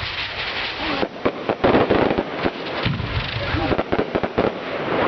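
Fireworks going off: a dense run of crackling and sharp bangs, thickest about one to two seconds in.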